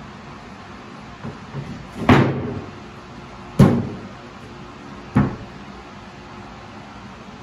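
Large MDF panels knocked and set down on a desk carcass: a few light taps, then three sharp thumps about a second and a half apart, the first trailing off in a short scrape.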